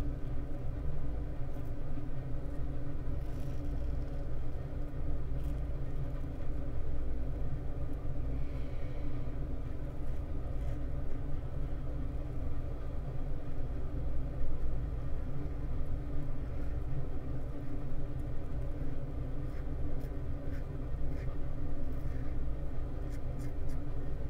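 Steady low mechanical hum with several held tones, like a motor or fan running, under faint scraping ticks of a safety razor drawn across lathered stubble.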